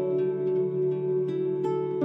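Soft background music: plucked notes, a few a second, ringing over sustained low tones.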